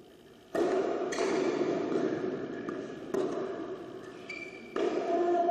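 Tennis ball struck by rackets in a serve and rally on an indoor court: the serve about half a second in, then return hits every one to two seconds, four in all. Each is a sharp pop followed by a ringing echo from the hall.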